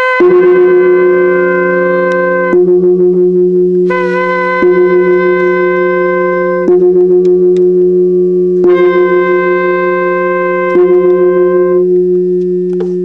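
Ceremonial wind-instrument music: long blown notes of about two to three seconds each, each starting with a slight dip in pitch, over a steady low drone that restarts about every two seconds.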